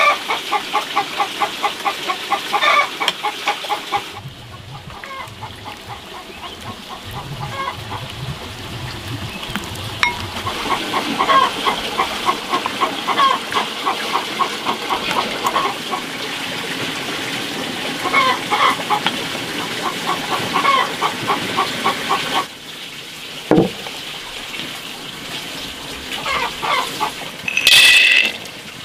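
Chickens clucking in quick repeated calls through most of the stretch. Near the end, a loud rattle of dried red beans being poured into a metal wok.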